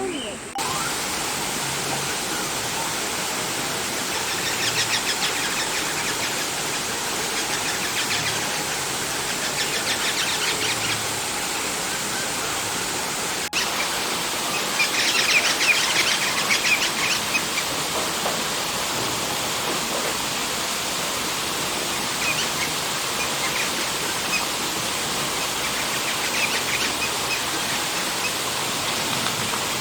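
Eastern rosella chattering in several bouts of quick, high chirps, loudest about halfway through, over a steady rushing noise like running water.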